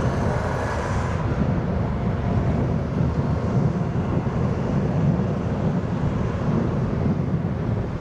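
Jet airliner noise: a high engine whine fades out about a second in, leaving a steady low rumble.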